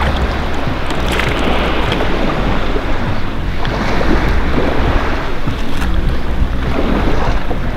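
Wind buffeting the microphone over small waves lapping in shallow sea water: a steady, rushing noise with a strong low rumble.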